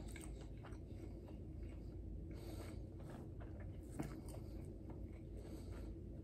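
A person quietly chewing a mouthful of nori-wrapped rice ball, with faint scattered mouth clicks and one slightly sharper click about four seconds in.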